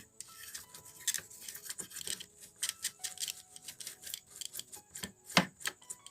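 Irregular light clicks and taps of small tools working on a radio's circuit board while its audio amplifier IC is being replaced, with one sharper click near the end. A faint steady high tone lies underneath.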